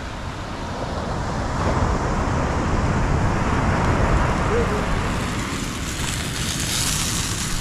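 Wind buffeting the microphone over the wash of surf on the beach. In the last second or two a higher hiss comes in as raw sausages are laid in a hot cast-iron pan on a portable gas stove and start to sizzle.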